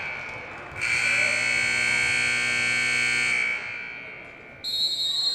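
A volleyball gym's electric buzzer sounds for about two and a half seconds, a steady harsh buzz. Near the end comes a short, high, steady whistle blast from the referee.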